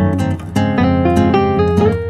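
Background music: strummed acoustic guitar with a steady rhythm and a melody line.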